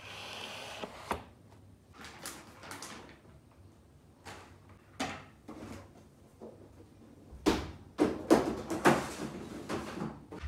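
Household clatter as plastic cat litter boxes are handled: scattered knocks and clicks with rustling, then a busy run of louder knocks and scrapes near the end.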